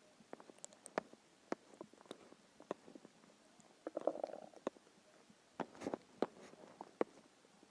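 Empty, hungry human stomach gurgling: irregular small pops and clicks, with a longer bubbling gurgle about four seconds in and another cluster of gurgles near six seconds.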